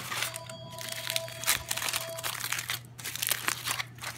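Aluminium foil crinkling and crackling in quick, irregular bursts as it is peeled open by hand from around a bagel sandwich.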